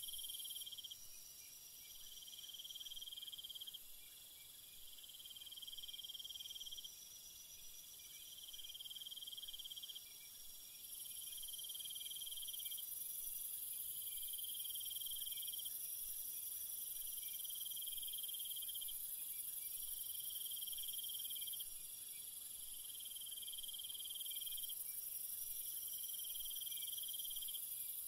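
Crickets trilling at night: a high, even trill that breaks off and resumes every couple of seconds, over a faint high hiss.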